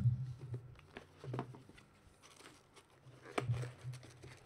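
Hands handling trading-card packs and a card box: a few short taps and light rustles.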